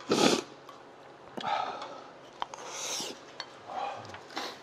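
Spoons scraping against bowls while eating, with a loud scrape at the start and a few sharp clinks of cutlery.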